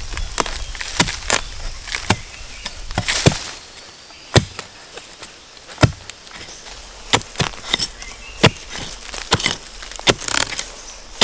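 Irregular sharp chopping strikes, a dozen or more at uneven spacing, from a hand tool cutting into soil and bamboo to dig out bamboo shoots. Brief rustles come between the strikes.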